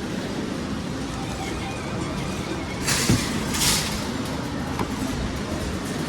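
Steady low hum of arcade machines, with a thump and two short rattling bursts about three seconds in.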